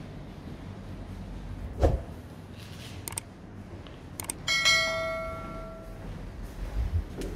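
A thump about two seconds in, then two short clicks and a bright bell ring that fades out over about a second and a half: the click-and-bell sound effect of a YouTube subscribe-button animation.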